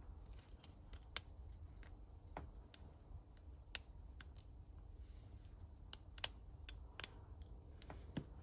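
Faint, irregular small metallic clicks of a gem hook pick and tension wrench working the pin stack inside an ASEC padlock during single-pin picking, with a few sharper clicks among them.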